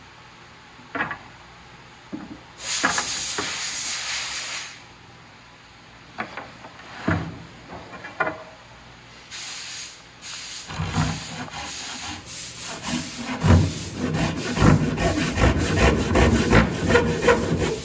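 Double-edged Japanese-style pull saw cutting pine window-frame stock by hand. A long rasping stroke comes about three seconds in, then a few knocks and scrapes. Quick, steady sawing strokes, about two a second, fill the second half.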